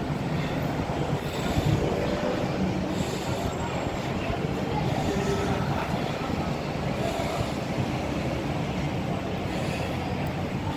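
Steady low rumble of outdoor city noise, without any single sharp event standing out.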